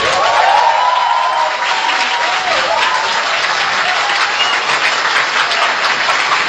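Audience applauding, with a few faint whistles, at the close of a music track.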